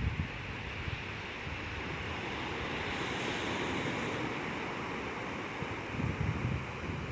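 Ocean waves washing on the shore in a steady hiss, with low rumbles of wind on the microphone near the end.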